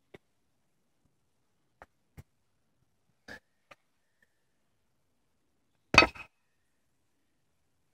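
The edge of a hand strikes a cloth-covered slab resting on cinder blocks. There is one sharp impact about six seconds in, with a short clatter right after, and the slab does not break. A few faint taps come before it.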